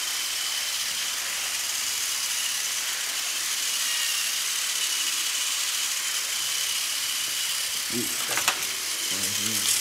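Several battery-powered toy trains running on plastic track: a steady whirring hiss with a faint high motor whine. A few sharp clicks come near the end.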